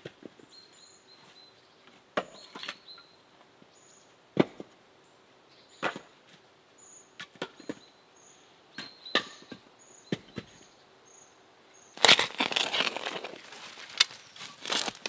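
Single chopping strikes on firewood, a sharp knock every second or two, some with a brief ring. About twelve seconds in, a louder spell of rustling in dry leaves and knocking of split logs as firewood is handled at a woodpile. A bird repeats a short high note in the background.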